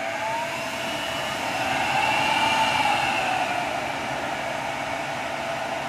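Cooling fans of a Dell PowerEdge M1000E blade enclosure spinning up just after power-on: a steady rush of air with a whine that climbs in pitch and loudness, peaks about two and a half seconds in, then eases back a little.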